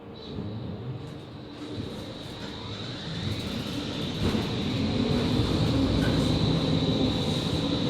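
Ride noise inside a Končar TMK 2200 low-floor electric tram: a rumble of wheels on the rails with a thin steady high whine, growing louder over the first five seconds and then holding steady.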